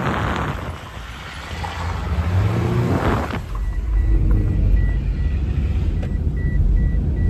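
Wind buffeting the microphone of a moving car, then an engine revving up in rising pitch about two seconds in. From about halfway, a steady low road rumble inside the car's cabin, with a thin high beep repeating about twice a second.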